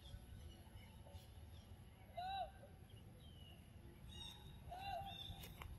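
Two short, clear calls that rise and fall in pitch, about two and a half seconds apart, over a faint low rumble and scattered high chirps.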